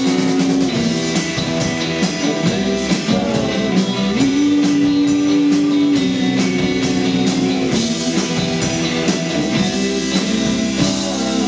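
Live rock band playing: two electric guitars, an electric bass and a drum kit, with long held notes over a steady beat.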